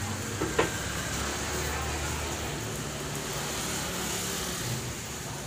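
Street noise: a motor vehicle engine running with a steady low hum, and a single sharp knock about half a second in.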